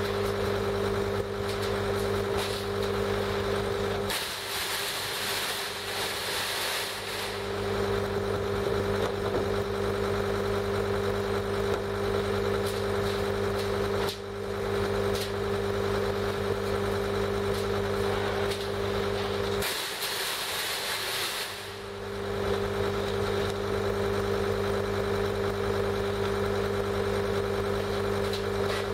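John Deere compact track loader's diesel engine idling steadily. Twice a hiss lasting two to three seconds comes in while the engine's low hum drops away: about four seconds in and again about twenty seconds in.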